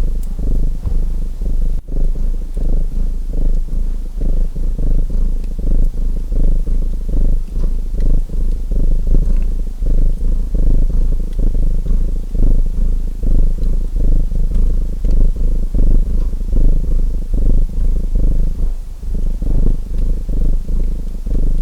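Domestic cat purring steadily and close up, with a brief break about two seconds in. Faint crackles of a wood fire sit under the purr.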